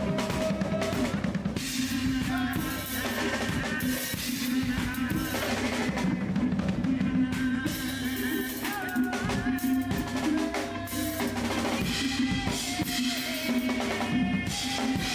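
A band playing with a drum kit: bass drum, snare and rimshots under pitched instruments.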